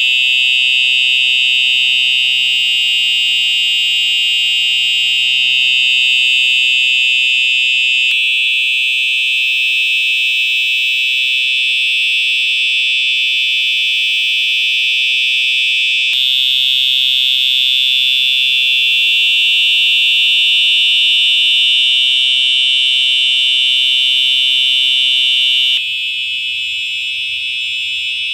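Home fire alarm system's notification horns sounding continuously during a full alarm test, a loud high-pitched electronic tone with no breaks. Its tone shifts abruptly three times, and it drops a little in loudness near the end.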